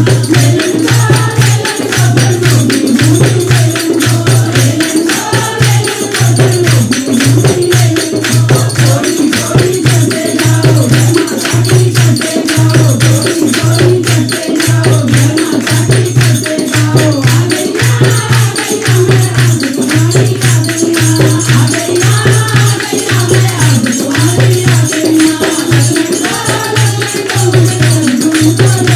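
A group of women singing together in unison while clapping their hands in rhythm, over a steady low drum beat and tambourine-like jingles.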